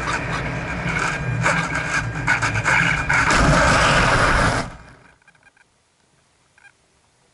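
A Multiplex EasyStar II foam RC plane belly-landing, heard from a camera mounted on the plane: a rushing noise with knocks as it skims low over the grass, then, about three seconds in, a loud scraping rush as the foam fuselage skids through the grass. It cuts off suddenly about five seconds in as the plane comes to rest.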